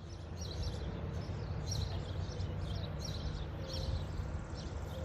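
Small birds chirping again and again over a steady low outdoor rumble, with a faint held tone underneath.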